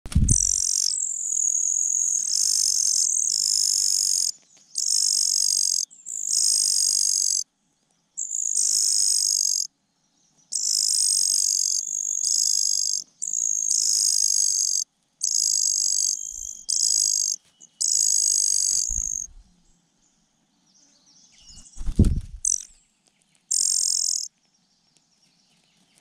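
Songbird nestlings begging: a chorus of high, shrill calls in repeated bursts about a second long. About 22 s in there is a single loud thump and rustle at the nest, followed by one more short burst of begging.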